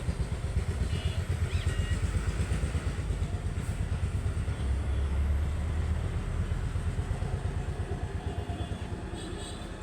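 Diesel engine idling with a rapid, even low throb, getting quieter over the last couple of seconds.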